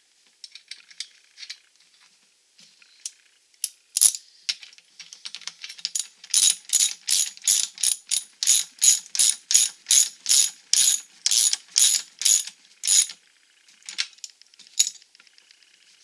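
Socket ratchet clicking as it tightens the arbor nut on a bench grinder: a run of quick ratcheting strokes, about three a second, through the middle, with scattered clicks of metal parts being handled before and after.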